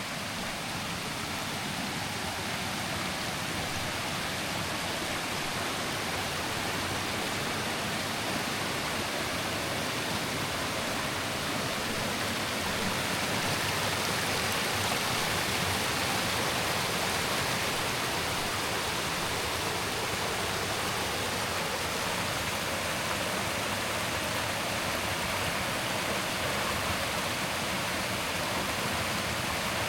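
Steady rushing of flowing water, a creek or falls running over rocks, swelling slightly about halfway through.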